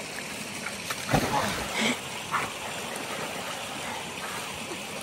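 Steady rush of running water, with a short loud burst of sound about a second in.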